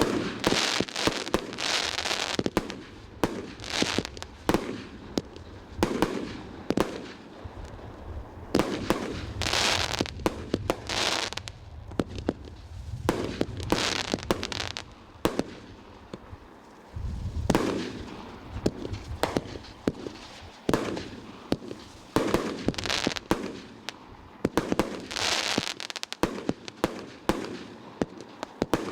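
Fireworks going off: repeated sharp bangs, often several in quick succession, each followed by a crackling hiss.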